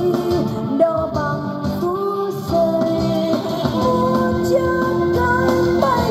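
A song with singing and instrumental backing playing from a cassette tape on a Kenwood SH-3MD micro hi-fi system, heard through its SK-3 bookshelf speakers in the room.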